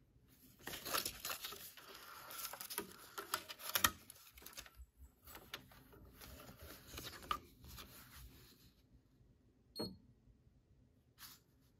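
Faint rustling and crinkling of paper strips being handled, with scattered light clicks and taps. The handling stops about nine seconds in, leaving a couple of isolated clicks.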